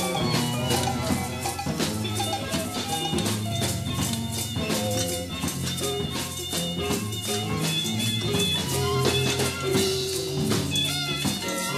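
Studio session recording of a small jazz ensemble playing, heard from a cassette dub of a 1974 master reel. A bass line and held pitched notes run under steady rattling hand percussion.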